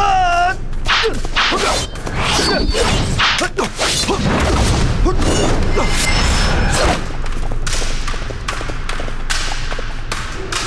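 A horse whinnies briefly at the very start, then a long run of swishes, sharp hits and thuds follows: sword-fight sound effects from a martial-arts scene.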